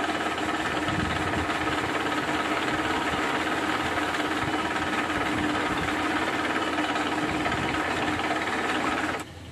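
Milling machine running steadily, its spindle drilling a hole into a black POM (acetal) plastic disc with a drill bit, a constant machine hum with steady whining tones. The sound cuts off suddenly near the end.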